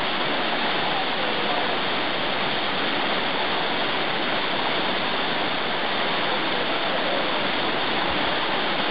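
Dunn's River Falls, a terraced waterfall, rushing steadily over its rock steps.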